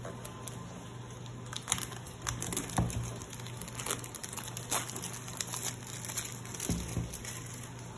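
Clear plastic shrink-wrap crinkling and crackling as it is peeled off a cardboard smartwatch box, in quick irregular ticks, with a couple of soft knocks as the box is handled.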